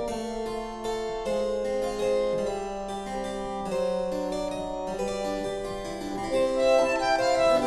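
Background music: a keyboard instrument playing a melody of quick, crisply struck notes over longer held bass notes.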